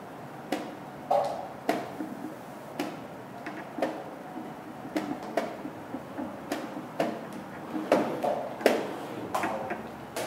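Wooden chess pieces set down on a board and chess-clock buttons pressed: over a dozen sharp, irregular clacks, the loudest two a little before the end.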